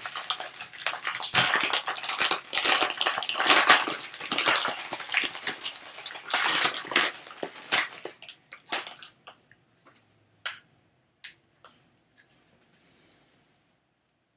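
Foil trading-card pack wrapper crinkling and tearing open, a dense crackle for about eight seconds, then a few light clicks as the stack of cards is handled.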